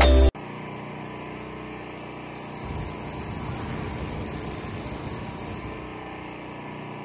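A backpack flamethrower fires a jet of flame for about three seconds, a steady rushing hiss that starts and stops abruptly.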